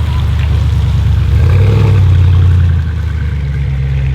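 Audi RS6 C8's twin-turbo V8, on a straight-pipe exhaust with the particulate filter deleted, running at low engine speed. Its note lifts slightly about a second and a half in and drops back near three seconds.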